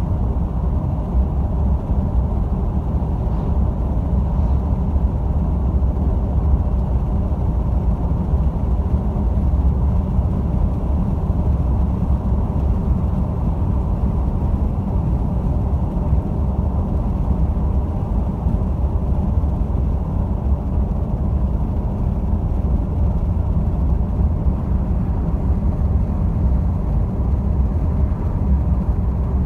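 Steady low rumble of a moving road vehicle heard from inside the cabin: engine and tyre noise, even throughout, with no sharp events.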